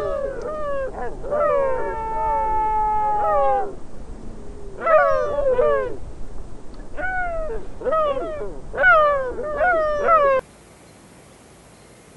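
Sea lions calling: a run of loud, drawn-out calls that fall in pitch, some in quick clusters and one longer, steadier call about two seconds in. The calling stops suddenly near the end, leaving only a faint hiss.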